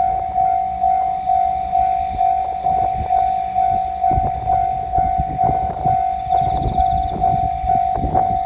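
Japanese level-crossing warning bell ringing its steady 'kan-kan' alarm, a single repeated tone about two to three strikes a second. From about four seconds in, the rumble and clatter of a train passing over the crossing join it.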